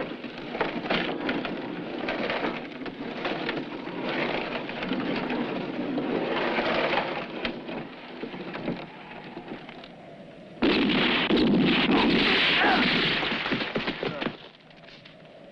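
Western gunfight sound effects: repeated revolver and rifle shots cracking over a rumbling, noisy background. About ten and a half seconds in, a sudden loud rush of noise lasts some three and a half seconds, then drops away.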